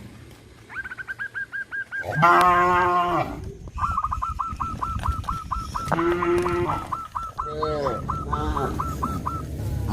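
Cows mooing: a loud moo about two seconds in and a shorter one around six seconds, with more short calls near eight seconds. Behind them a bird gives fast series of short, repeated high notes, first briefly near the start and then through most of the rest.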